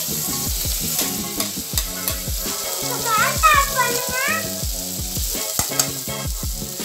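Sliced tomatoes sizzling in hot oil and fried onions in an aluminium kadai, stirred with a spoon, over background music with a low beat and a melody near the middle.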